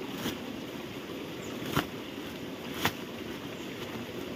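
A plastic sack crackling and rustling as it is unfolded and shaken out by hand: three short, sharp crackles about a second apart, the last two the loudest, over a steady background hiss.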